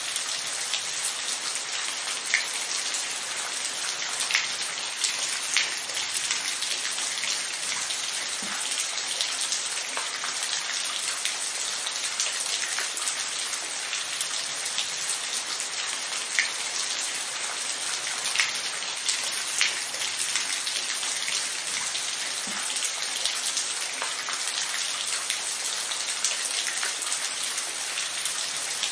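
Steady rain falling, an even hiss with individual drops ticking sharply on a surface every second or two.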